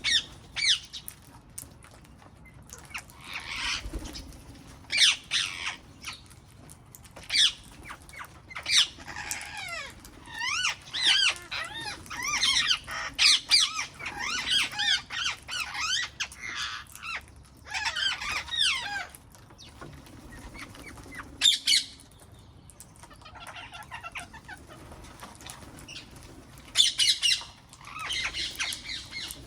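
Wild parrots calling: loud squawks at intervals, with a dense run of overlapping chattering calls from about ten seconds in until nearly twenty.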